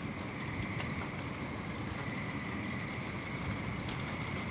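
Steady outdoor noise as a thunderstorm moves in: a low rush of wind, a steady high-pitched tone above it and a few faint ticks. No thunderclap.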